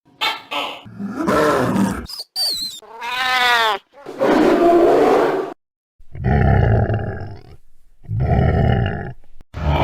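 A series of monster roar and growl sound effects, about six separate roars of one to two seconds each with short gaps, and a brief high wavering whistle between the first two.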